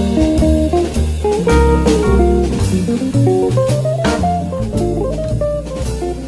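Background music: plucked guitar over a bass line, with a drum kit keeping a steady beat.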